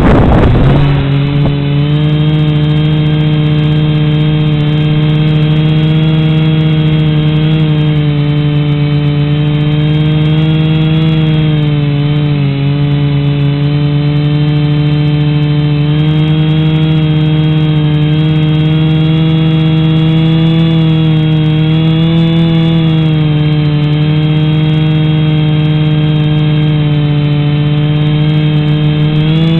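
Small camera drone's electric motors and propellers spinning up abruptly, then a loud, steady whine whose pitch wavers slightly with the throttle as it takes off and flies, picked up close by the camera mounted on the drone itself.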